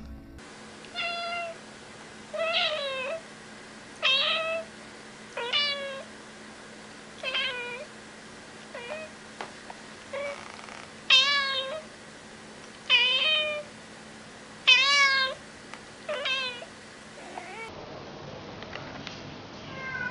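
A cat meowing over and over: about a dozen separate meows, each under a second, one every second or two, many falling in pitch at the end, the loudest ones in the middle.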